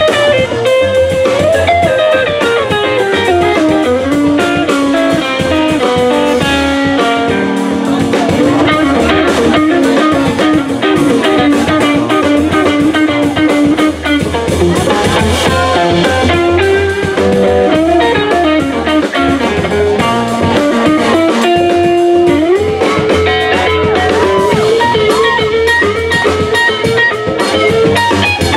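Live band playing: a semi-hollow-body electric guitar plays a lead solo line with sliding, bending notes over upright bass and drum kit.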